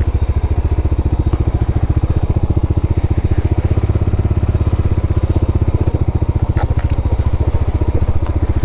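Motorcycle engine running steadily at low revs with an even, rapid beat; its low note grows fuller about four seconds in.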